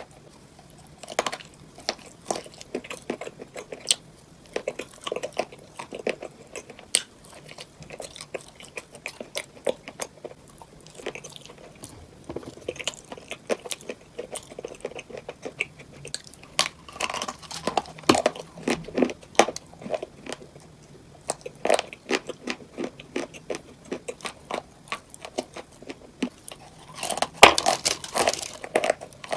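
Close-miked biting and chewing of cupcakes filled with crunchy items: many sharp crunches and crackles, with a loud, dense bout of crunching near the end.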